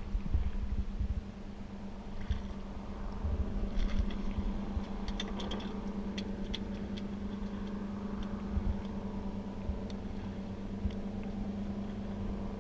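Boat engine idling with a steady low hum, wind buffeting the microphone in gusts. A few light clicks and taps come between about four and seven seconds in, as the fluke lands and flops on the deck.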